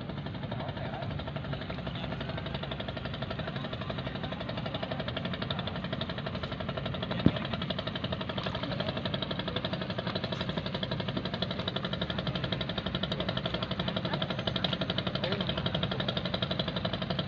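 A small engine running steadily with a fast, even pulse, growing a little louder in the second half, with one sharp click about seven seconds in.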